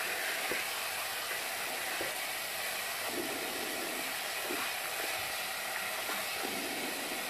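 Tap water running steadily into a bathroom sink, a constant hiss.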